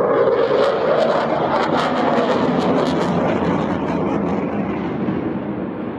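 RAF Eurofighter Typhoon's twin Eurojet EJ200 turbofans in afterburner, a loud jet roar with a ragged crackle through the first half. The roar eases somewhat as the jet climbs away.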